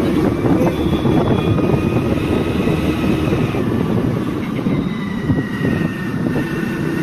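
Motor scooter running along a road, with wind rushing over the microphone as a dense, steady rumble.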